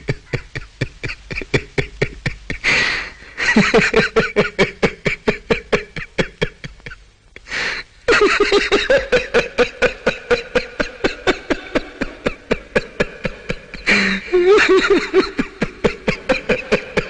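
A man laughing hard and long: runs of rapid, even "ha-ha" pulses, broken by a loud gasping breath about three seconds in, again halfway through and again near the end.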